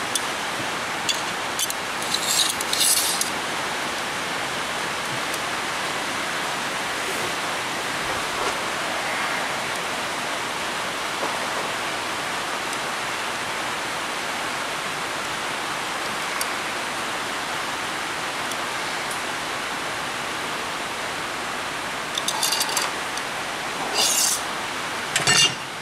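Steady hiss of rain drumming on a tin roof. A few brief clinks and clatters of handling come through near the start and again near the end.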